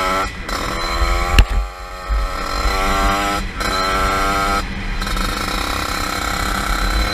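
Tuned 50cc motorbike engine revving hard at full throttle, its note cutting out briefly a few times as the throttle is let off between pulls. A single sharp crack about a second and a half in.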